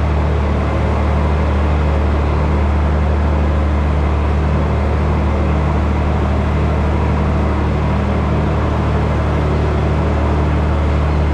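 A tractor and feed wagon running steadily while the wagon's conveyor feeds out, with a loud, even low drone from the engine and machinery.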